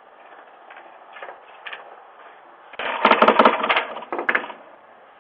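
A rapid clatter of small hard knocks and clicks for about a second and a half near the middle, after a few scattered faint clicks. It is heard through a doorbell camera's microphone, with a steady hiss behind it.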